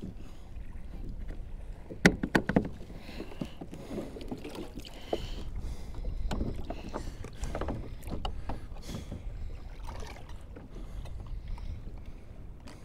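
Water sloshing against a plastic fishing kayak's hull, with a quick cluster of hard knocks on the hull about two seconds in and scattered lighter knocks of gear after that.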